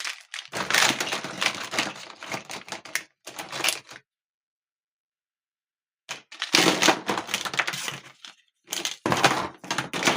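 Plastic Hot Wheels track pieces and parts clattering and knocking together as a box of them is rummaged through: rapid, irregular clicks and cracks, in two bouts with a pause of about two seconds between them.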